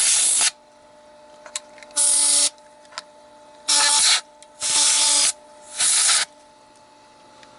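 Short blasts of compressed air hiss into a Bell & Gossett LR20BF booster pump, one ending about half a second in and four more following. Between the blasts the freshly oiled pump's faint steady hum can be heard.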